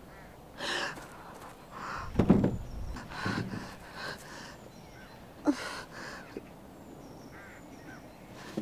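Men's effortful breathing and short grunts while heaving a coffin, with one heavy thud about two seconds in.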